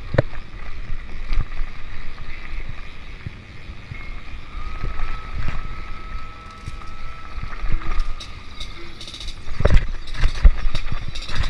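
Mountain bike ridden over dirt singletrack: a steady rumble of tyres and wind buffeting the microphone, with knocks and rattles as the bike hits bumps. The hardest knocks come near the end. A faint thin whistle runs for a few seconds in the middle.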